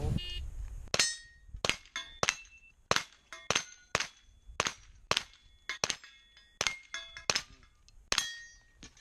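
A string of about twenty pistol shots fired at an uneven pace, with quick pairs and short pauses between them. Several shots are followed by a brief metallic ring, as from steel targets being hit.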